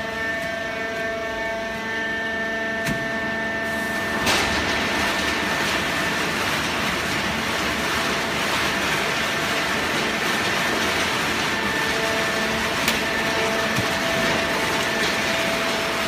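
Industrial cardboard shredder and horizontal hydraulic baler running, a steady machine drone with several held whining tones. About four seconds in a louder rushing noise sets in and carries on.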